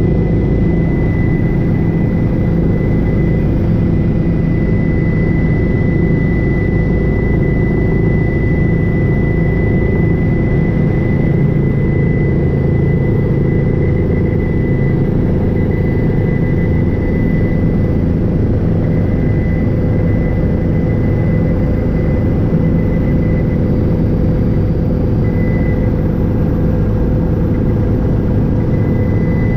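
Helicopter in flight, its engine and main rotor running steadily: a constant heavy drone with a thin, steady high whine above it.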